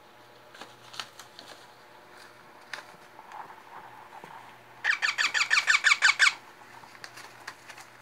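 Baby ringneck parrot calling with a fast run of about a dozen squeaky chirps lasting about a second and a half, about five seconds in, as it is offered food by hand. Light taps and clicks come before it.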